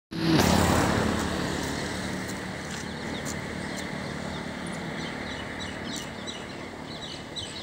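A motor vehicle passing close by, loudest in the first second and then fading away. Small birds chirp quickly and high-pitched near the end.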